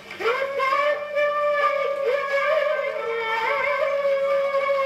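Old shellac record playing on an acoustic gramophone: a singer slides up into a long held note with a wavering vibrato over a thin accompaniment.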